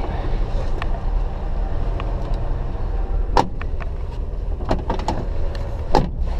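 Carbureted Chevy II engine idling steadily, heard from inside the cabin. Two sharp clunks come about three and a half and six seconds in.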